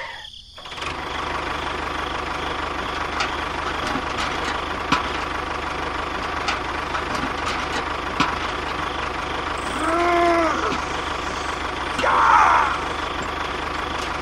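A motor running steadily, with a few faint clicks.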